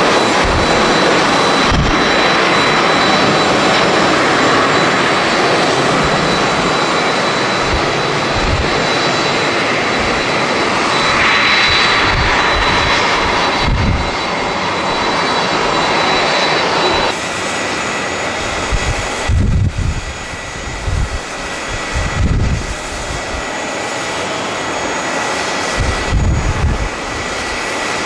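Twin jet engines of a Delta Airbus A330 at takeoff power, a loud steady roar as it lifts off and climbs away. After about 17 seconds the roar drops back and deep gusts of strong wind buffet the microphone.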